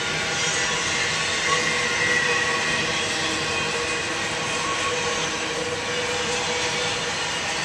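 Double-stack intermodal freight train rolling past: a steady, continuous noise of the well cars' steel wheels running on the rails.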